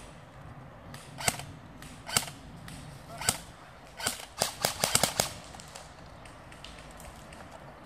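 Airsoft guns firing: three single sharp shots about a second apart, then a quick string of about eight shots a little after four seconds in.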